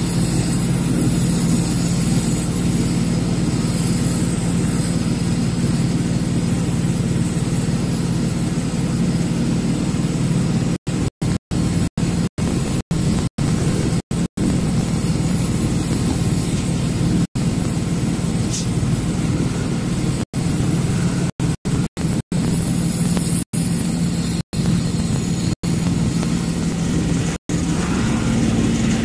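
A truck's diesel engine runs with a steady low hum, heard from inside the cab. From about eleven seconds in, the sound cuts out completely for split seconds, again and again. Near the end the engine note shifts up as the view swings round.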